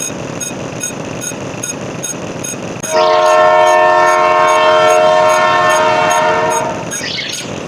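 A horn blowing one long, loud chord of several notes for nearly four seconds, starting about three seconds in, over a steady rumbling noise with an even ticking.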